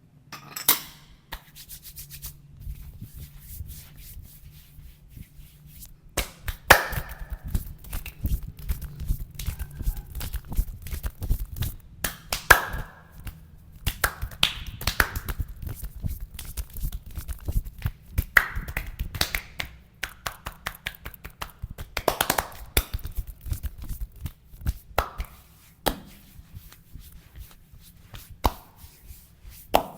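Hands massaging skin: steady rubbing with many irregular sharp slaps, taps and snaps scattered through it, busiest through the middle.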